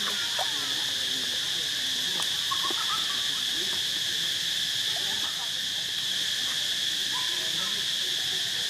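Steady, unbroken drone of insects, with a few faint short chirps scattered over it.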